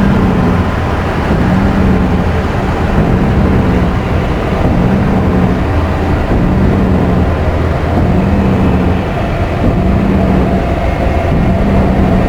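Synthesizer noise drone: a dense, rumbling wash of noise with a low tone pulsing on and off about every second and a half.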